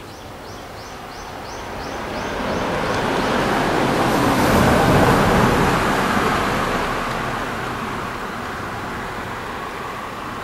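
Electric commuter train passing on the Jōban Line, the rumble and hiss of wheels on rail swelling to a peak about five seconds in, then fading. A row of short high chirps sounds at about four a second in the first few seconds.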